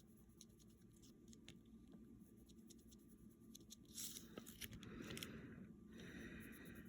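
Near silence, then faint pencil scratching on a paper checklist from about four seconds in, as boxes are ticked off.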